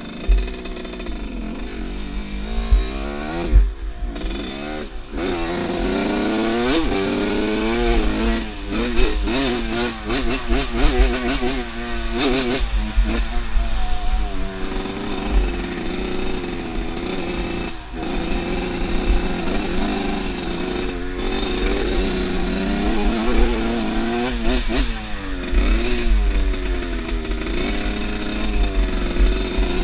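Off-road motorcycle engine being ridden, revving up and falling back again and again as the throttle is worked, with wind buffeting the microphone.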